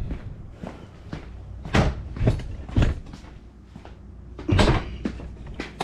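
A series of clunks and knocks, with lighter clicks between, as tools and the removed door lock actuator are handled and set down on a workbench.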